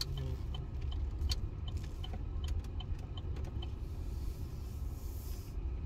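Car cabin sound while driving slowly: a steady low engine and road rumble, with an even ticking of about three ticks a second from the turn signal.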